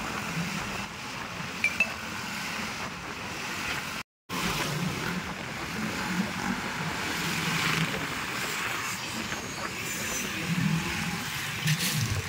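A road vehicle on the move: steady engine and road noise that cuts out completely for a moment about four seconds in, with a couple of small clinks.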